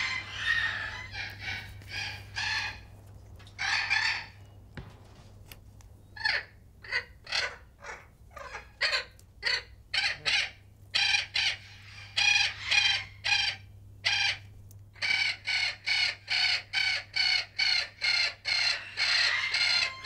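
Spix's macaws calling: harsh, raspy squawks, a few scattered ones at first, then a quick even run of about two to three calls a second through the last few seconds.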